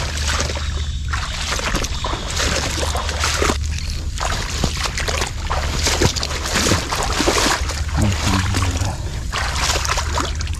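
Water sloshing and splashing in a shallow stream, in irregular bursts, with a steady low rumble underneath.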